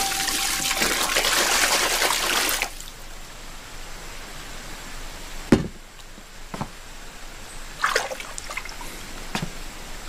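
Water pouring in a steady gush from a wooden bucket into a wooden tub, stopping about two and a half seconds in. A sharp knock follows about five and a half seconds in, then a few fainter knocks.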